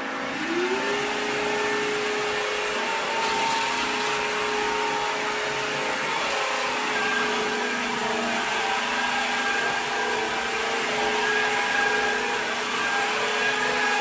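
ILIFE W90 cordless wet-dry floor vacuum running in dry mode as it is pushed across the floor. Its motor whine rises in pitch about half a second in, then holds a steady whine over the hiss of the suction.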